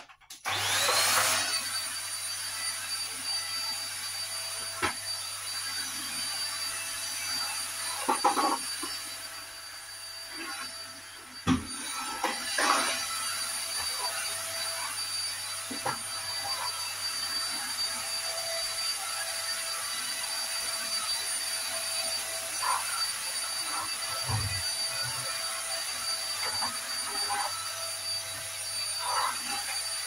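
Cordless stick vacuum cleaner switching on, its motor spinning up with a high whine that rises and settles within the first second, then running steadily. A few short knocks and bumps sound over it.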